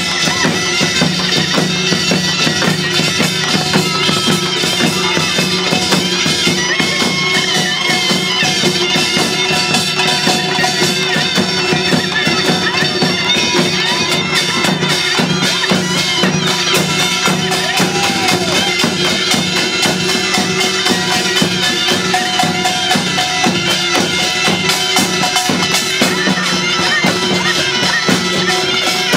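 Korean pungmul folk band playing: a taepyeongso shawm holds a piercing reedy melody over steady beating of hand-held barrel drums and other percussion.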